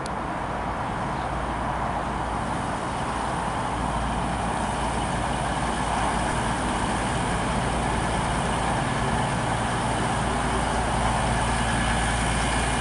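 Virgin Trains Voyager diesel-electric multiple unit arriving slowly at the platform, its underfloor diesel engines running with a steady rumble and hum that grows a little louder through the first half.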